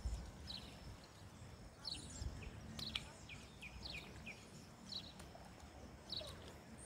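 Birds chirping outdoors: short, high, falling calls repeated every second or so, over a faint low rumble.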